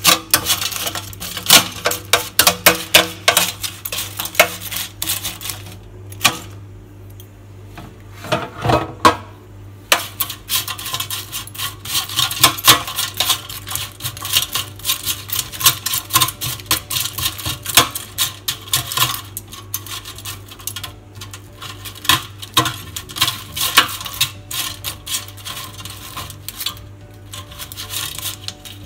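Crisp air-fried potato chips rattling and scraping against the air fryer's basket as they are stirred and tossed: a fast run of light clicks and clatter that pauses briefly about six seconds in.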